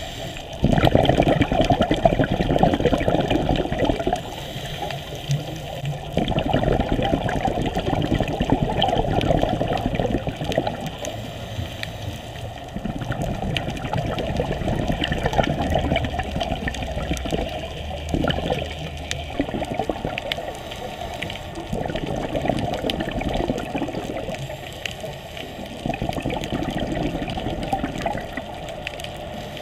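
Scuba regulator breathing underwater: bubbling, gurgling exhalations lasting a few seconds each, about five of them, with quieter gaps between.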